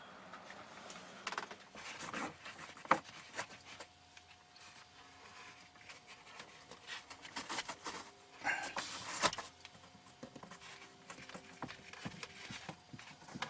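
Scattered clicks, taps and rubbing of hands working a dash cam power cord into the van's interior plastic trim, with a faint steady tone underneath from about four seconds in.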